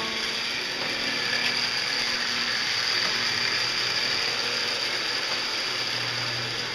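Marx WM Crooks toy locomotive's open-frame electric motor and gears whirring steadily, with a thin high whine, as the train and its tinplate cars run on metal track.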